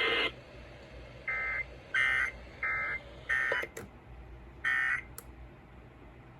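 Emergency Alert System end-of-message data bursts closing out a severe thunderstorm warning. There are five short, buzzy digital chirps, the loudest three about a second and a half apart, plus a couple of sharp clicks.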